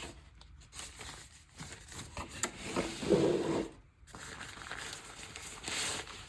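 Camera packaging being handled and rubbed as the camera is lifted out of its box: irregular scratching and rustling, with a sharp click about two and a half seconds in and a louder rub just after.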